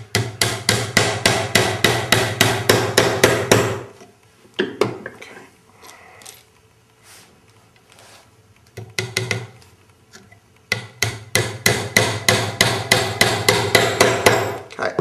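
Hammer tapping small panel pins into a glued wooden butt joint, in quick runs of light blows, several a second. The tapping breaks off for several seconds midway, with only a few single knocks, then starts again.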